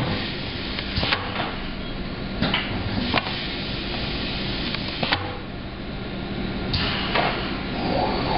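Screen-printing press running with a steady hum, with several sharp clacks and knocks from its squeegee head and frame, and a short swish just before the last knock.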